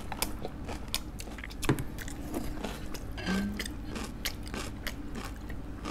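Close-miked chewing and wet mouth sounds of a person eating boiled chicken from samgyetang, with many small irregular clicks.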